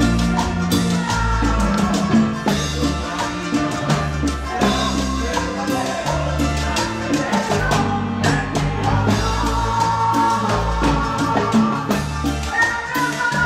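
Live tropical band music with a steady bass line and a driving drum and percussion beat under sustained melody lines.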